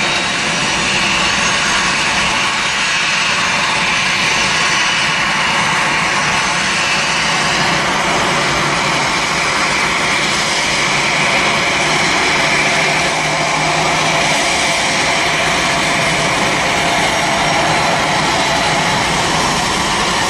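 Boeing 737's jet engines running steadily at low thrust as it taxis onto the runway and lines up, a continuous even jet noise with no spool-up.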